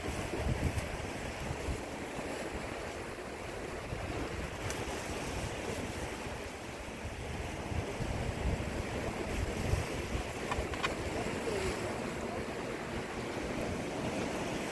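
Sea surf washing against rocks, with wind gusting on the microphone. A couple of faint clicks come about two-thirds of the way through.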